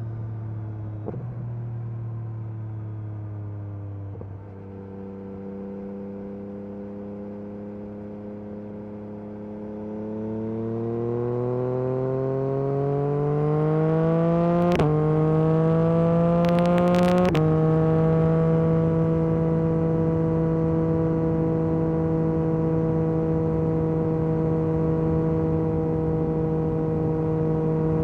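Yamaha MT-09 SP's 890 cc inline-triple engine through an Akrapovic carbon racing exhaust, riding at light throttle at first, then accelerating with rising pitch and getting louder. It changes up twice, about 15 and 17 seconds in, each time dropping in pitch, then holds a steady cruise.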